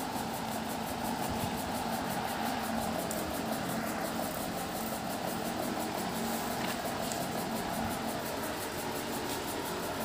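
Steady background hum with an even hiss, like a running motor, with a few faint ticks.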